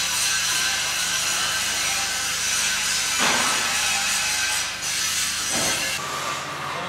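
Angle grinders working steel: a continuous harsh grinding hiss, with the grinder's sound briefly changing about three seconds in and again after five seconds. The level drops near the end.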